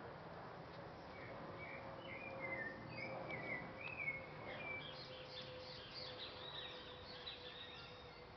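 A small songbird singing a run of short chirping, warbled phrases over steady outdoor background noise, with a faint steady hum underneath.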